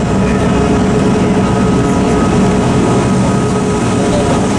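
Diesel cog railway train running steadily, heard from aboard: a constant engine drone with a few steady hum tones over the rumble of the wheels and rack.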